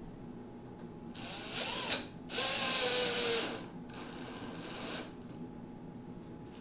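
Cordless drill driving screws into laminated plywood, run in three short bursts of about a second each, its pitch rising and falling with the trigger on the first.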